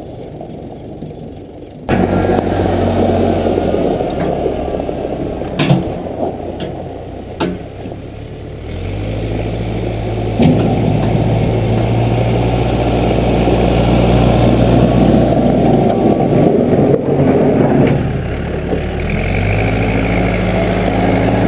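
Case 580B backhoe's engine running, stepping up in revs about two seconds in and again around nine seconds, easing off near eighteen seconds and picking up again, as the machine works under load. Two sharp knocks come about six and seven seconds in.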